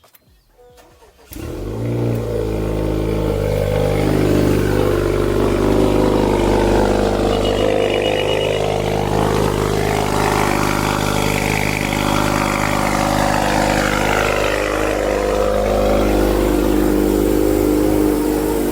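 2018 Honda Accord 2.0T's turbocharged four-cylinder starting about a second in and running at a steady cold-start idle, really loud through a catless downpipe, with a small exhaust leak at the downpipe-to-exhaust joint.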